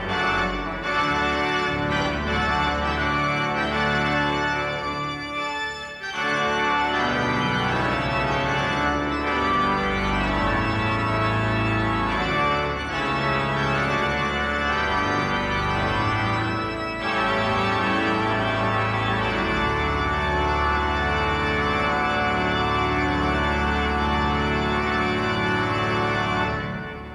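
Pipe organ playing full, sustained chords. It ends on a long held chord that dies away into the reverberation near the end.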